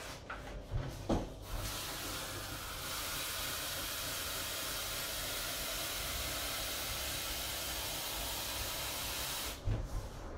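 Water running steadily from a kitchen tap, probably to measure out water for the recipe; it comes on after a couple of knocks about a second and a half in and is shut off abruptly near the end.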